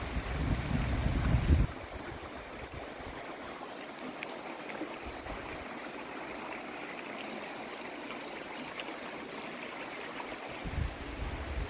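Creek water running steadily. Wind buffets the microphone with low rumbling for the first second or two and again near the end.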